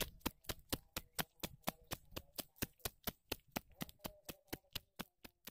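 Running footsteps in rubber sandals on an asphalt road: quick, even slaps, about four a second.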